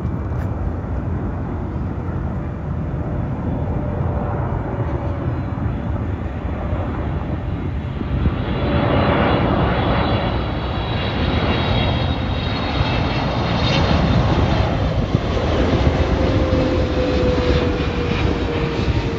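Boeing 777's twin jet engines on final approach with landing gear down, a steady rumble that swells about halfway through and stays loud, with a high whine over it. A lower tone slowly falls in pitch near the end.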